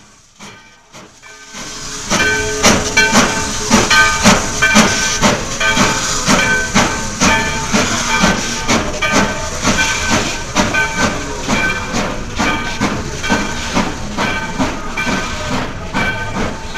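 Steam-train sound: a steady hiss of steam with an even chuffing rhythm, starting about a second and a half in, with music underneath.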